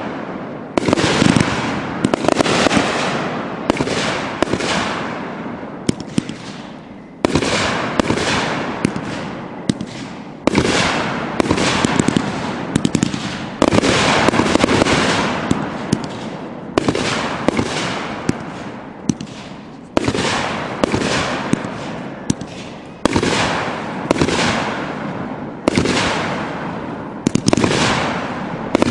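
Consumer aerial fireworks bursting one after another, a sharp bang every second or two, each fading out before the next.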